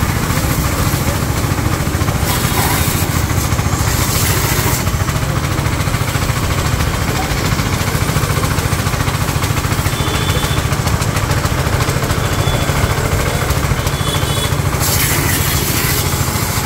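7.5 HP petrol engine driving a VT-70S piston-type HTP pressure-washer pump, running steadily under load with a deep even hum. Over it, the hiss of the high-pressure water jet, which grows brighter for a few seconds now and then.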